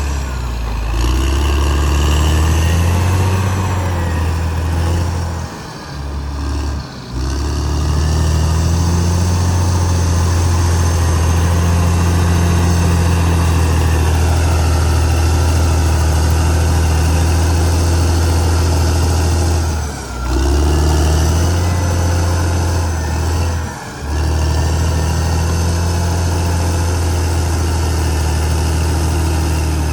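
Caterpillar D6R XL bulldozer's diesel engine running hard, its pitch rising and falling as it works, with a few short breaks in the sound.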